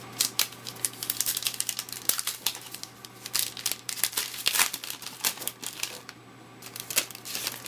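A trading-card pack's wrapper crinkling and crackling in the hands as it is opened, a quick run of small crackles with a brief lull near the end.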